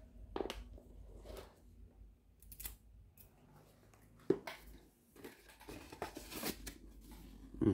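Scattered light clicks and papery rustles of a watch box and its packaging being handled, with a sharper click about four seconds in.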